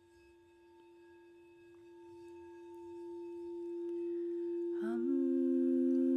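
Crystal singing bowl played around its rim, one steady ringing tone that swells gradually louder. About five seconds in, a lower hummed note joins beneath it.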